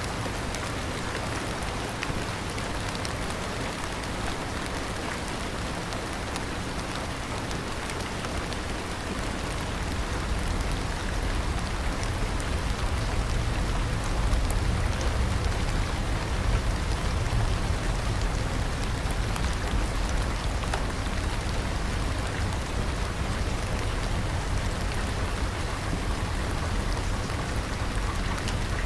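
Steady heavy rain falling on a surface, an even hiss with many fine drop ticks. About a third of the way in, a deeper low rumble swells and stays under the rain.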